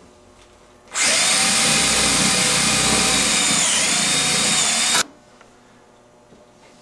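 Power drill spinning a 2-inch hole saw through a wooden board, starting about a second in and running steadily for about four seconds. Its pitch sags briefly under load near the end, and then it stops suddenly.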